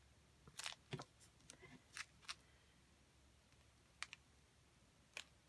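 Scattered faint clicks and light taps, about seven in all, from small craft items being handled on a desk. They come in a cluster in the first two and a half seconds, then singly about four seconds in and near the end.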